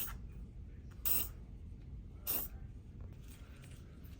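WD-40 aerosol can spraying lubricant into a squeaky door hinge in short hissing bursts, three of them about a second apart, then fainter ones near the end.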